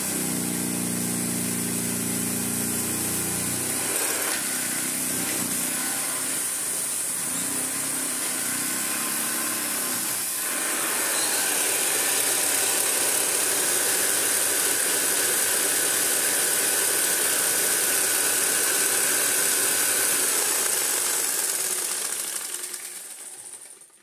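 A 1935 Hoover 825 upright vacuum cleaner running as it is pushed over a rug: a steady motor-and-brush drone with a strong high hiss. It gets louder about eleven seconds in and dies away near the end.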